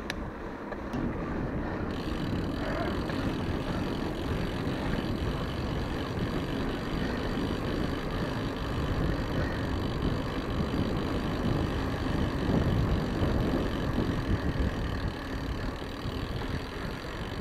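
Mountain bike rolling over cobblestones: a continuous rattling rumble from the tyres and the bike shaken by the stones, growing fuller about two seconds in.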